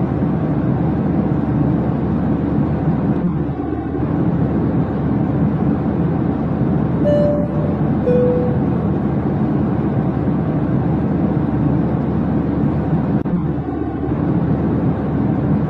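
Steady rumble and hiss of the kind heard in a jet airliner cabin at cruise, dipping briefly about every ten seconds. A short two-note tone, high then low, sounds about seven seconds in.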